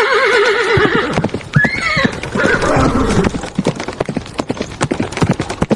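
Horse whinnying, a long quavering neigh that dies away about a second in, with a short rising-and-falling call about two seconds in. Hooves clip-clop steadily through the rest.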